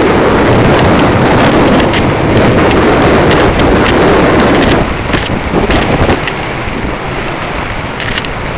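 Loud wind buffeting on the microphone of a camera riding on a bike being pulled at speed, a steady rushing that eases a little about five seconds in, with a few short sharp ticks.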